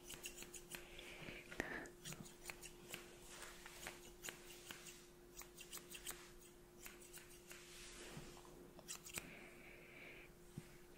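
Hairdressing scissors snipping close to the microphone in quick, irregular runs of crisp snips, over a faint steady hum.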